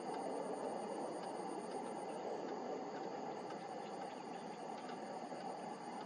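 An insect trilling steadily in high, rapid pulses, breaking off for about a second a little after two seconds in, over a steady rushing background noise.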